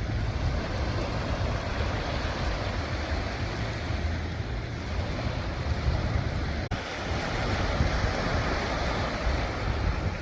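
Sea waves washing on the shore: a steady rushing noise, with wind buffeting the microphone into a low rumble. A brief click and dropout comes about two-thirds of the way through.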